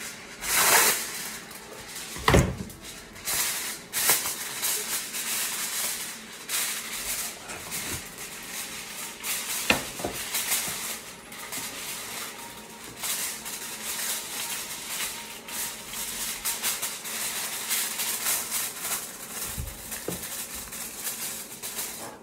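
Plastic packaging crinkling and rustling, with scattered clicks and taps, as a toy is unwrapped and handled.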